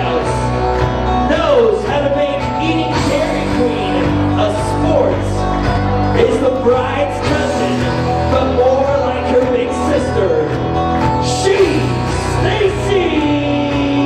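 Song with a sung vocal over sustained bass notes, played loud through a DJ's sound system for a wedding party's grand entrance.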